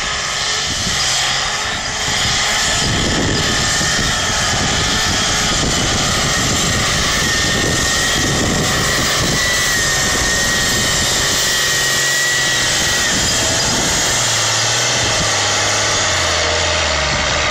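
Tractor-pull tractor's diesel engine running flat out under heavy load as it drags a weight-transfer sled, a steady loud drone with a thin high whine for several seconds in the middle.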